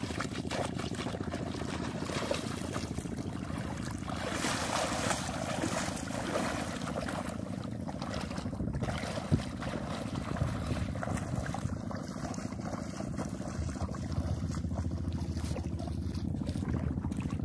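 Feet wading and sloshing through shallow seawater, with wind buffeting the microphone. There is a single sharp click about nine seconds in.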